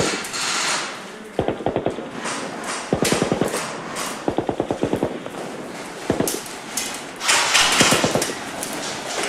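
Dubbed-in machine-gun sound effects: several short bursts of rapid automatic fire at about ten shots a second, with a couple of single shots between them. A loud rushing noise swells up about seven seconds in, under the last burst.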